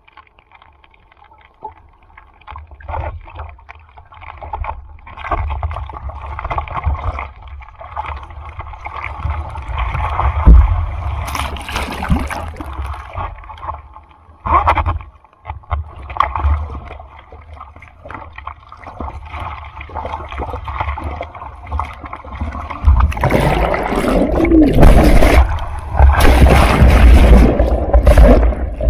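Sea water sloshing and splashing close to the microphone in rough storm surf, with a low rumble of wind and water on the microphone. It swells in surges and grows into a loud rush of breaking whitewater about two-thirds of the way in.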